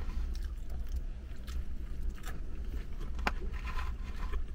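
A bite into a soft burger bun, then chewing, with light rustling from a paper fries carton and one sharp click about three seconds in, over a steady low hum in a car cabin.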